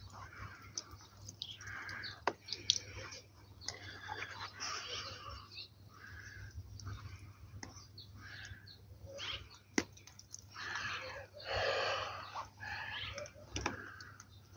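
Bird chirps repeating every second or so, with a few sharp clicks and a longer, louder call about twelve seconds in.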